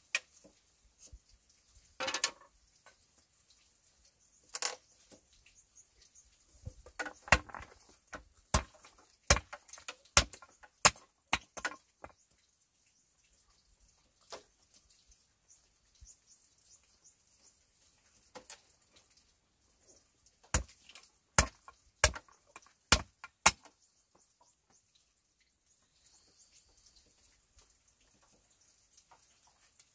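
Sharp knocks or strikes in two runs: about seven, a little under a second apart, through the middle of the stretch, then five more, evenly spaced, later on. Before them come a couple of short scraping rustles.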